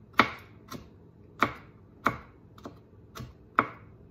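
Chef's knife chopping dill pickles on a plastic cutting board: about seven sharp, unevenly spaced knocks of the blade on the board, some strong and some light.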